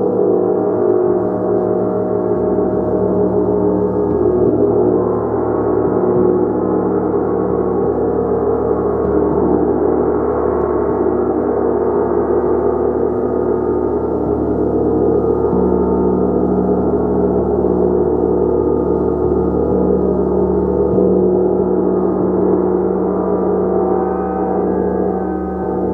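Gong played continuously, a dense sustained wash of many overlapping ringing tones that swells and shimmers without a break.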